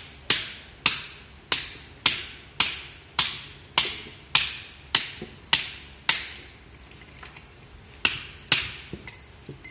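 Hammer blows on a steel drift, knocking the check nut of a feed pellet mill's press roll tight. The sharp metallic strikes ring briefly and come about two a second, eleven in a row, then a short pause and two more near the end.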